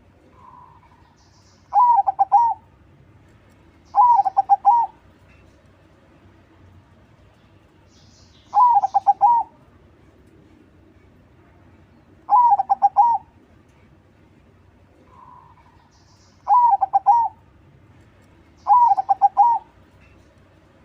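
Zebra dove (perkutut, crossbred 'crossing' type) singing its rolling cooing song: six short phrases of quick notes a few seconds apart, with a softer single coo twice between them.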